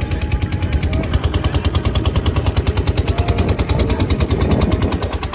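A motorboat's engine running with a rapid, steady thumping, about a dozen beats a second.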